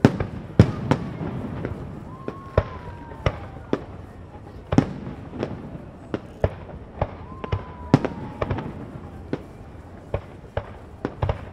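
Aerial fireworks going off in quick, irregular succession, about two sharp bangs and cracks a second, heard up close.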